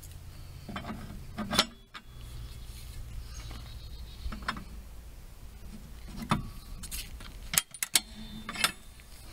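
Sharp metallic clicks and clanks from a car-towing speed dolly's steel frame and lever being worked by hand, the loudest about a second and a half in and a quick run of clicks near the end, over a steady low hum.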